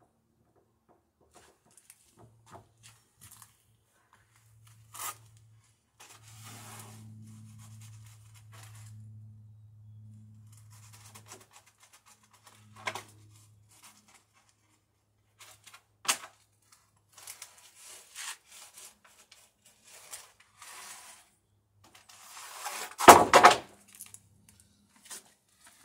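Wooden boards being shifted and rummaged in a lumber pile: scattered knocks and short scrapes of wood on wood, with the loudest clatter near the end.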